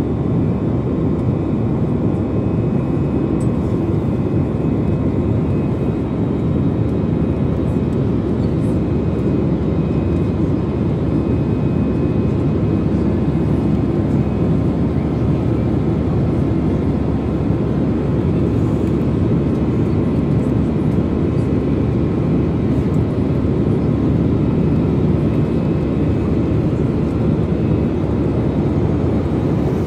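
Jet airliner's turbofan engines and airflow heard from inside the passenger cabin: a steady, even roar with a faint steady whine above it.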